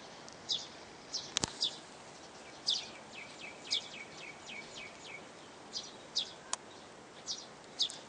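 A small bird chirping over and over, short high notes that drop in pitch, with a quick run of chirps in the middle, over the steady rush of a waterfall. Two sharp clicks, about a second and a half in and again near six and a half seconds.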